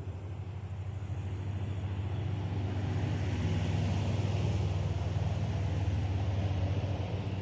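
A motor vehicle's engine running, growing louder over the first few seconds and then easing off, as of a car or truck driving past.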